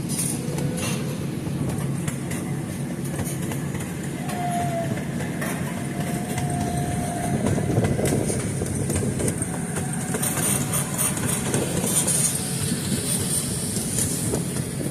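Train rolling along the track: a steady rumble of the carriage and wheels on the rails while riding.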